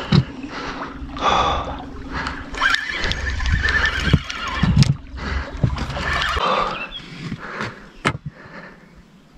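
Fishing reel's drag buzzing out line in short bursts while a hooked carp pulls on the bent rod. A low rumble sits under the first two thirds and stops about six seconds in, and there is a single sharp click near the end.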